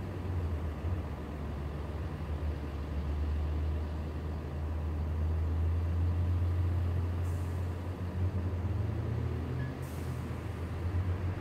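Turbocharged Fiat 500 with an aftermarket Madness exhaust, heard from a distance as it approaches: a steady low exhaust rumble, with two short high hisses about seven and ten seconds in.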